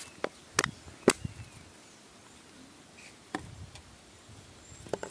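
Sharp plastic clicks and taps from a plastic bottle and its cap being handled and screwed together. There are three clicks in the first second, then a few more from about three and a half seconds in.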